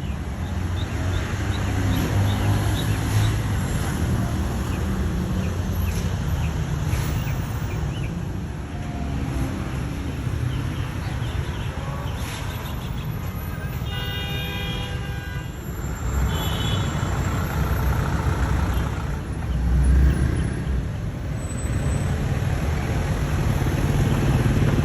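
Street traffic in a jam: the steady low rumble of idling and creeping car engines. A car horn sounds for about a second and a half around the middle, followed shortly by a brief second toot.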